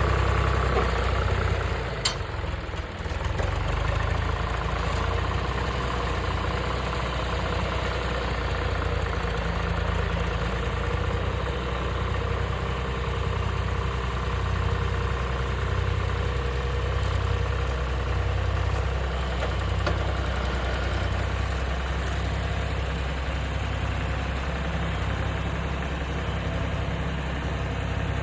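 An engine idling steadily, with a sharp click about two seconds in.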